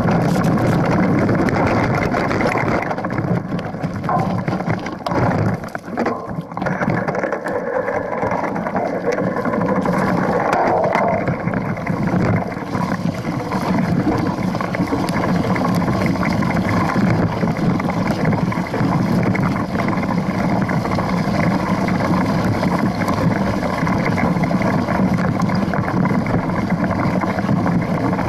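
Mountain bike rolling over a rocky, leaf-strewn dirt trail: a steady, loud noise of the knobby tyre on the ground and the bike rattling, picked up by a camera mounted at the suspension fork. The noise dips briefly about five seconds in.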